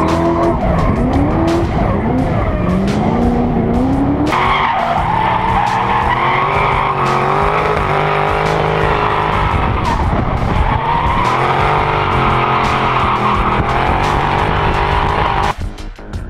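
Drift cars' engines revving hard, pitch rising and falling, with tyres squealing and skidding. The sound changes abruptly about four seconds in and again near the end.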